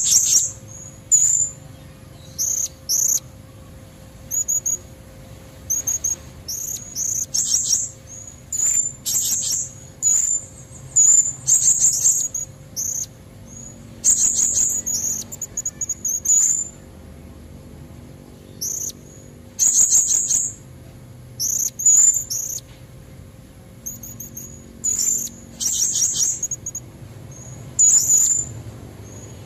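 Blue-crowned hanging parrot (serindit) calls, given as a female's: short, very high-pitched chirps, some single and some in quick rattling clusters, repeated irregularly throughout. A lure call meant to draw in males.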